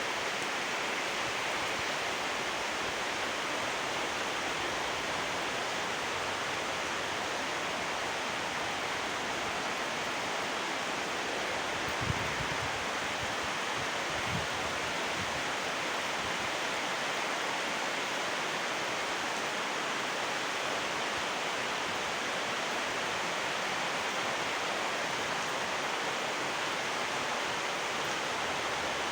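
Steady rain falling, an even hiss, with one brief tick about twelve seconds in.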